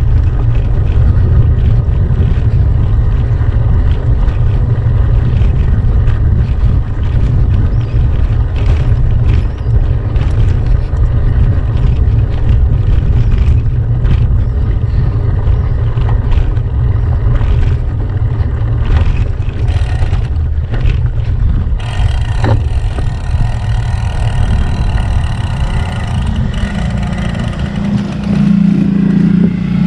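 Wind buffeting the microphone of a gravel bike's action camera on a dirt track, a steady low rumble with scattered rattles and knocks from the bike over the rough ground. Near the end a motorcycle engine joins in as a steady hum.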